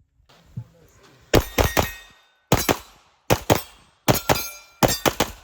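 Rapid gunfire in about five quick bursts of three or four shots each, the bursts close together.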